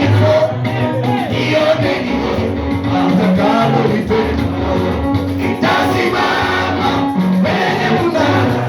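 Live gospel worship music: a band with a bass line stepping between held notes under several voices singing together.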